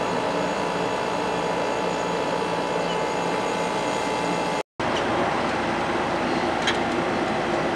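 GE through-the-wall air conditioner running, heard from its outdoor side: a steady compressor hum and condenser fan noise with a few constant tones. It drops out for a split second a little past halfway.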